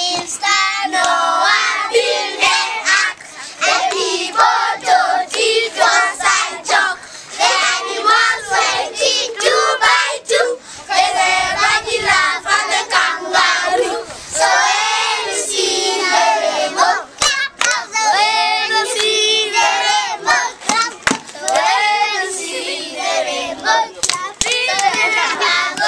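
A group of young children singing a song together and clapping their hands along with it.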